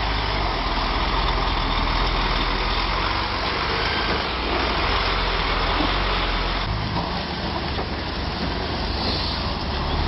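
Tatra off-road truck's diesel engine running steadily under a dense rushing noise, easing slightly for a couple of seconds in the second half.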